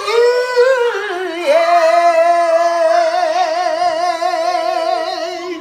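A woman singing unaccompanied: a short sliding phrase, then one long held note with a wide vibrato.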